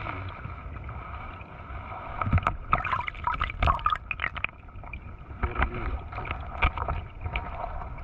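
Muffled underwater stream sound picked up by a submerged camera, with scattered knocks and taps, thickest from about two to four and a half seconds in, as the eel-fishing rod is worked down among the rocks of a crevice.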